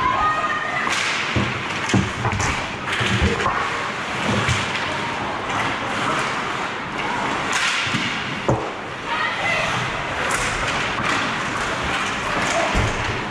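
Ice hockey play close to the goal: skate blades scraping and carving the ice, with many sharp knocks and thuds from sticks and puck. A couple of short shouts come through, about half a second in and again about nine and a half seconds in.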